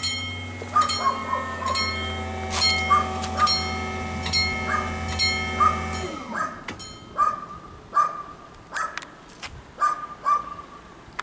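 Level crossing warning bells ringing, about two strokes a second, over a steady low mechanical hum that drops in pitch and stops about six seconds in.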